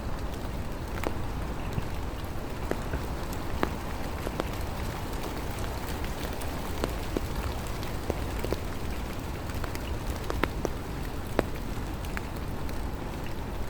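Rain falling: a steady hiss with many separate drops ticking sharply close by, at irregular moments.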